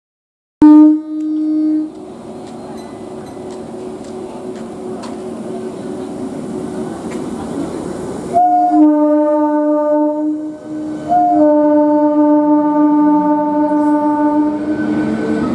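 Eastern Railway EMU suburban train's horn: a short blast about half a second in, then two long blasts from about 8 seconds in, with the train's running noise building steadily in between as it pulls away.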